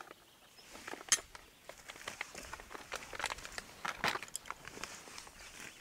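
Rustling and crinkling of a nylon stuff sack being rummaged through, with scattered small clicks and knocks of camping gear being handled. A sharp click about a second in is the loudest sound.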